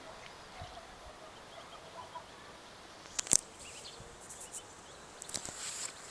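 Mallard hen and ducklings giving faint, short calls. A couple of sharp clicks come about three seconds in.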